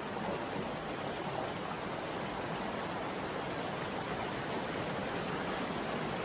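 Water of a small stream flowing steadily, an even, unbroken hiss.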